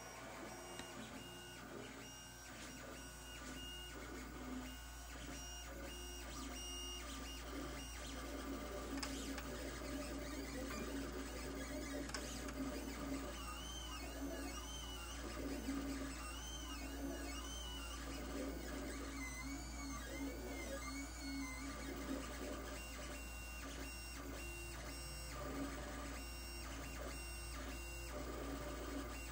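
Lulzbot TAZ 3 3D printer running a print: its stepper motors whine and buzz, changing pitch as the print head and bed move. In the middle stretch the high whines waver up and down, over a steady low hum.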